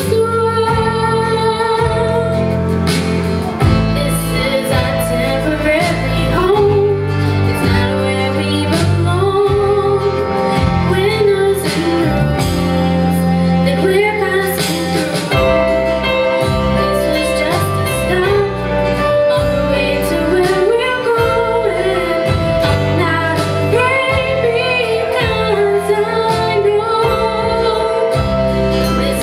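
A teenage girl singing a song into a handheld microphone over amplified musical accompaniment with a bass line.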